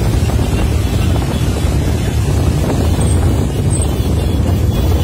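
Dozens of small motorcycles riding together in a caravan, their engines blending into a steady, dense rumble, with wind buffeting the microphone.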